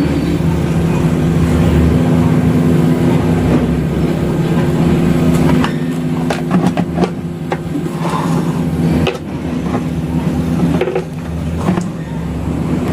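A steady low mechanical drone holding an even tone, with a few sharp clicks and taps about six to eight seconds in.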